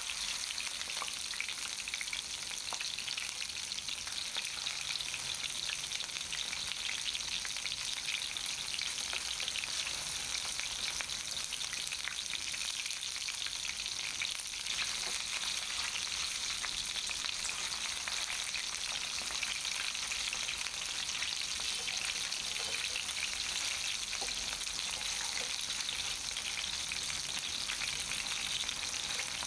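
Chicken legs pan-frying in hot oil: a steady sizzle with dense crackling and popping.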